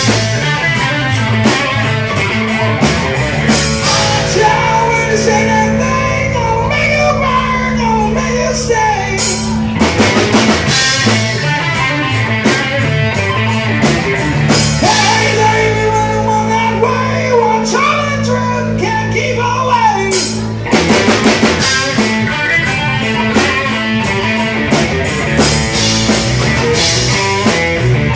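Live rock band playing loudly: electric guitar, bass and drum kit, with singing.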